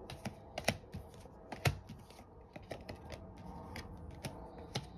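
Tarot cards being shuffled and handled, giving irregular sharp snaps and clicks of card edges, the strongest a little under two seconds in.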